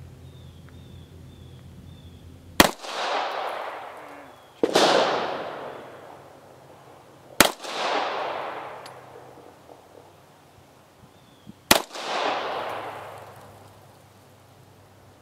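Walther P1 9mm pistol, the post-war alloy-frame version of the P38, firing four single shots spaced two to four seconds apart. Each sharp crack is followed by a long echo that dies away over a second or two.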